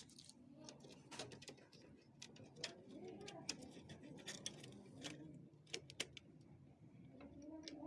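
Faint, scattered light clicks and taps of plastic and metal copier parts being handled and fitted together while a scanner's document feeder is reassembled.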